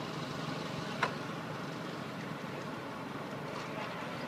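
Steady background rumble of road traffic, with one short sharp sound about a second in.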